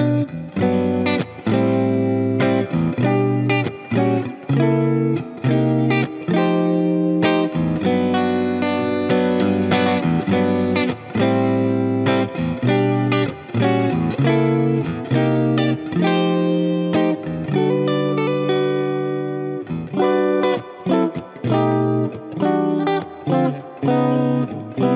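Sterling by Music Man CT50 electric guitar played through effects with light overdrive: short chords and notes cut off between strokes, in a choppy rhythm.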